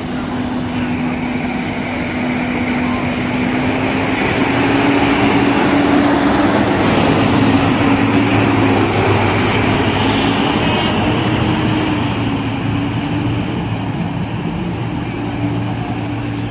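Farm tractor's diesel engine running steadily as it drives past, growing louder toward the middle and fading a little again.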